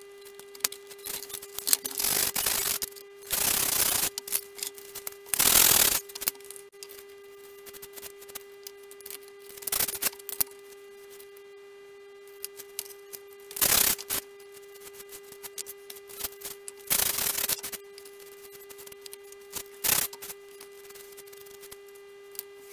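Hand sanding of balsa wood: short, irregular rasping strokes, each under a second, over a steady low hum.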